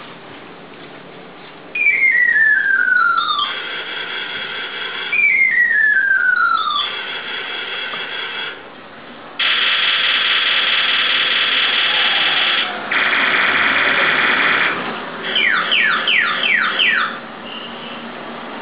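Multi-sound horn of a Willys Army Jeep pedal car, sounded from the button on the steering wheel and stepping through its different sounds: twice a falling whistle followed by a steady buzzy tone, then two longer steady tones, then about five quick falling chirps.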